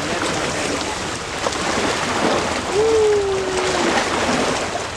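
Lake water splashing and lapping under steady noise. A single short tone, a little over a second long, sounds near the middle.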